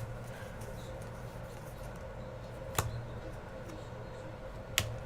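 Three sharp clicks of trading cards being handled and flipped through, over a steady low hum.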